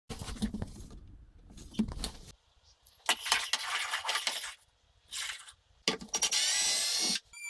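Hard parts and tools being handled in bursts of clinks, knocks and scrapes, with a brief rising whir near the end.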